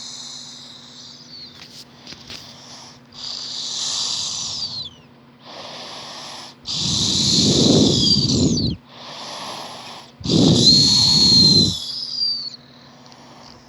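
A three-year-old girl snoring in her sleep: slow breaths with a high whistling tone through the nose, and two much louder, deeper snores about seven and ten seconds in.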